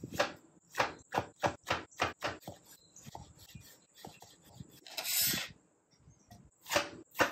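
Chef's knife dicing a tomato on a cutting board: a run of sharp knife strikes on the board at about three a second. A little after the middle comes a short scrape as the diced tomato is swept up on the blade, and more knife strikes follow near the end.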